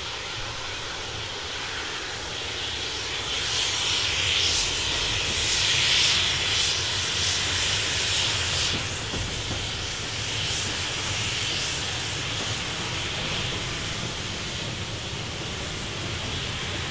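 Small steam tank locomotive working hard with a goods train, its exhaust beating in hissy chuffs over a steady roar and low rumble. It is loudest a few seconds in, as it passes.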